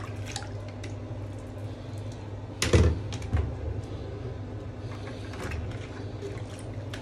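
Plastic vacuum cyclone parts being handled in a bucket of soapy bleach water: small clicks and knocks of plastic with water splashing, and a louder thump and splash about two and a half seconds in, over a steady low hum.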